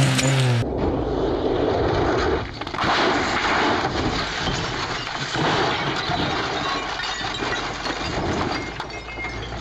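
Rally car crashing off the road and rolling over: crunching, scraping impacts over a steady rough noise. A car engine's hum cuts off about half a second in.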